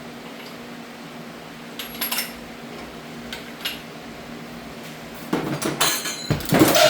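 Metal engine parts and tools clinking and clattering as they are handled: a few single clinks, then a quick run of louder clanks over the last second and a half.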